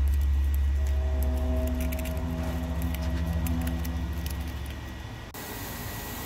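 Background music with a heavy deep bass, over light scattered clicks of a plastic spoon stirring in a plastic tub of pork blood. About five seconds in, the clicks stop and the music thins out.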